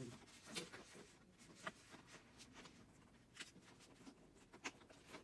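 Near silence with about four light clicks and taps from the handling of a flat-screen TV panel and its circuit board.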